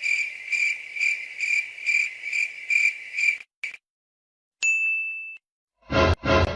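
Cricket chirping sound effect: a high-pitched chirp repeated evenly about eight times, a little over two a second, then a single short beep. A louder, different effect begins near the end.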